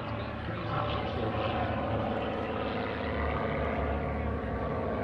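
MXS aerobatic monoplane's piston engine and propeller droning steadily as it climbs vertically.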